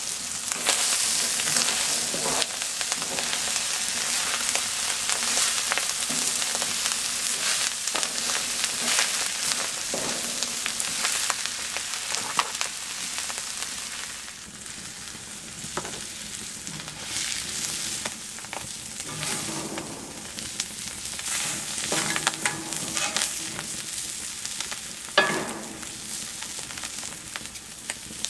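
Moose meat, mushrooms and vegetables sizzling in a wide pan over a wood fire, stirred and scraped now and then with a spatula. The sizzle is loudest in the first half and eases off about halfway through.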